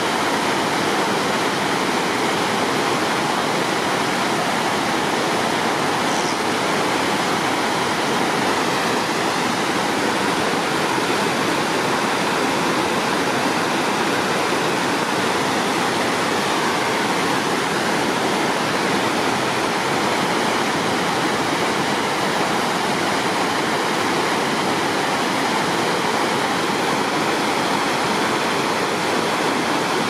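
Shallow mountain stream rushing and splashing over rocks and cobbles: a steady, unbroken rush of water.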